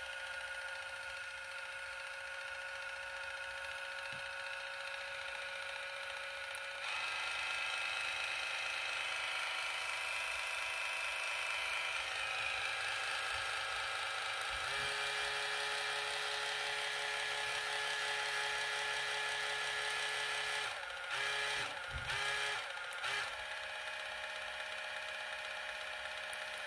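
Cordless water flosser's pump motor running with a steady hum, its pitch and strength shifting as the button steps it through its pressure modes. A little past 20 seconds in it cuts out and restarts several times in quick succession, then runs on more softly.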